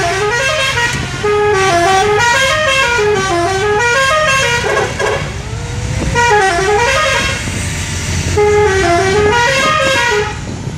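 Telolet horn, a multi-tone musical vehicle horn, playing a tune of short stepped notes that rise and fall, in two long phrases with a break about five seconds in, over a low engine rumble.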